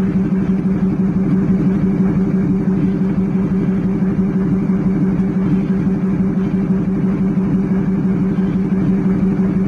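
Locomotive running with a steady, unbroken drone that holds a low pitch and a second one about twice as high.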